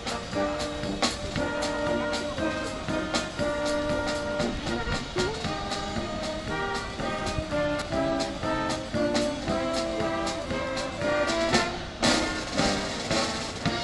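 Brass band music, held horn notes over a regular drum beat, with a brief rush of noise near the end.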